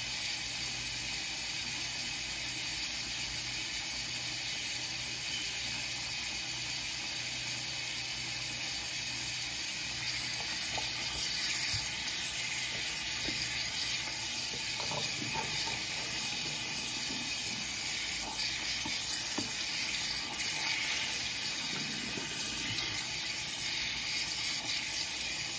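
Steady high-pitched hiss with a faint low hum under it, and a few faint knocks and rustles in the second half.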